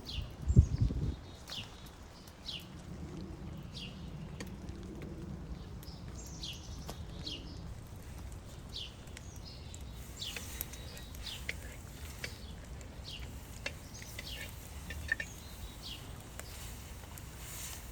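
Small birds calling: short, high chirps that slide downward, repeated every second or so and coming more often in the second half. A low thump about half a second in is the loudest sound.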